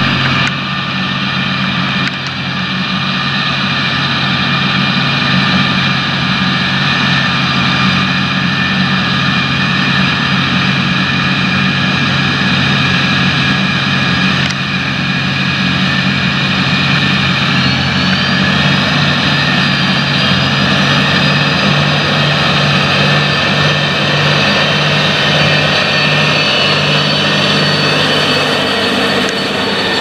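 John Deere 8360RT tracked tractor's diesel engine running steadily under heavy load while pulling an eight-furrow plough, with a high whine above the engine's hum.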